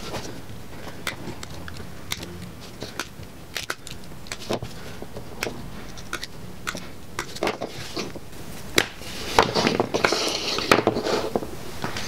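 Hand wire cutters snipping through the insulated wires of an automotive wiring harness one after another: sharp crunching snips at irregular intervals, with the rustle of the wires being handled, busier and noisier for a couple of seconds near the end.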